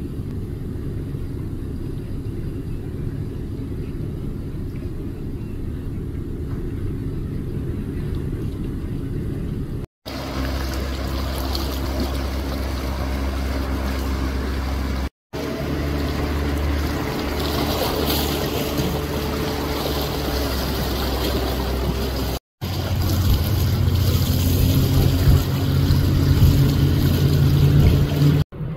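Motorboat engines running past, with water and wind noise, in clips broken by abrupt cuts. The first ten seconds are a low steady rumble. Next comes the steady hum of a small cabin cruiser's engine under way. In the last six seconds, the louder, deeper drone of a large flybridge cruiser's engines running fast, with hull wash.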